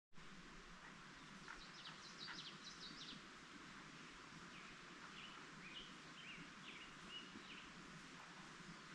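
Small birds chirping in two short runs of quick, high notes, faint over a steady background hiss.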